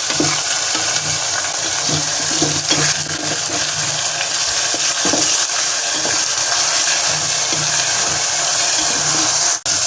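Onion paste frying in hot oil in a pan: a steady sizzle, with a spoon stirring and scraping the pan now and then. The sound drops out for a moment near the end.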